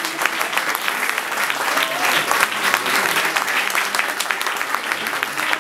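Audience applauding: many hands clapping in a dense, steady patter, with a few voices calling out over it.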